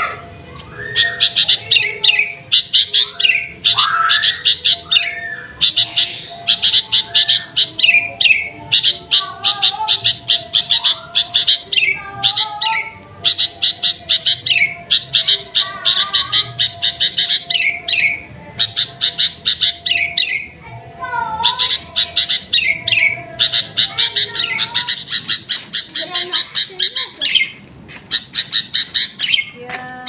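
Caged sooty-headed bulbul (kutilang) singing: runs of rapid, sharp, high chattering notes in phrases of a second or two, broken by short lower whistled notes and brief pauses.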